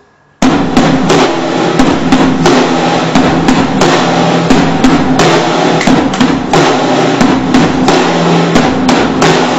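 A drum kit bashed loudly and continuously with crash cymbals, snare and bass drum, with an electric guitar played along under it; it starts abruptly about half a second in, right after the count-in.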